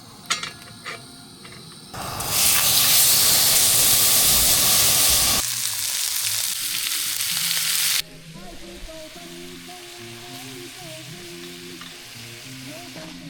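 Steak sizzling loudly in a hot cast iron pan, preceded by a few sharp knocks. The sizzle starts about two seconds in and cuts off suddenly about eight seconds in, giving way to quieter background music.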